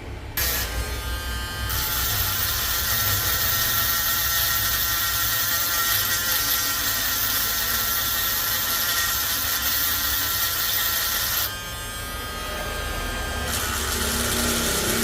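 A small high-speed electric motor tool running steadily with a bright whine. About two-thirds of the way through its high edge drops away for a couple of seconds, then it comes back at full level.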